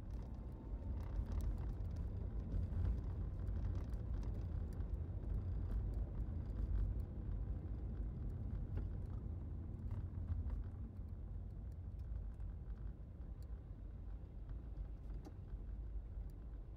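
A vehicle engine running steadily, heaviest in the deep low end, growing a little quieter over the last few seconds.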